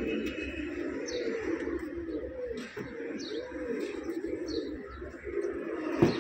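Domestic loft pigeons cooing continuously in low, rolling, warbling phrases, with a few brief high chirps from other birds over them. A single sharp knock comes near the end.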